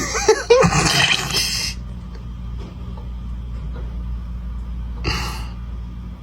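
A person's loud, breathy gasping for the first second and a half or so, then a quieter stretch with a steady low hum, and one more short breathy gasp about five seconds in.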